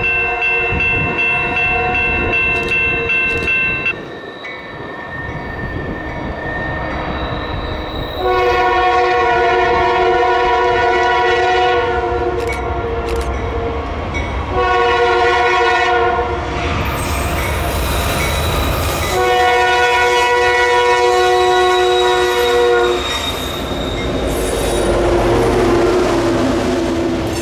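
Norfolk Southern diesel locomotive air horn sounding a series of long blasts for a grade crossing, over the low rumble of diesel prime movers working under power. A pulsing ringing tone sounds for about the first four seconds.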